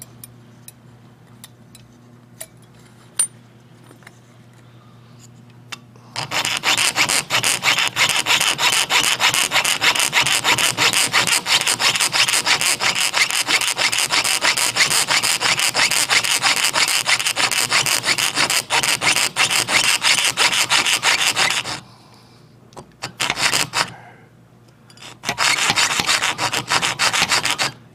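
Fine-bladed jeweler's piercing saw cutting a brass clock wheel blank on a bench pin, in rapid short strokes. A few faint ticks come first; the sawing starts about six seconds in, stops for a few seconds near the end with one short burst, then starts again.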